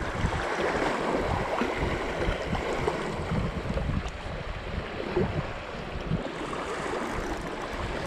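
Strong wind buffeting the microphone in uneven gusts, over small waves washing against shoreline rocks.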